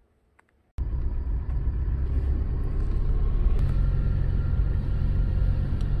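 Car driving along a road, heard from inside the cabin: a steady low rumble of engine and tyre noise that cuts in abruptly about a second in, after near silence.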